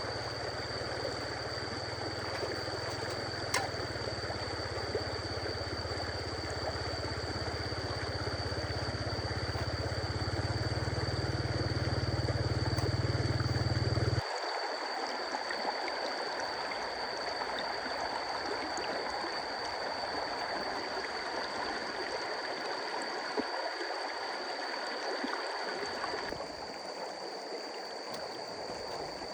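A stream running steadily, with a low rumble under it that cuts off abruptly about halfway through.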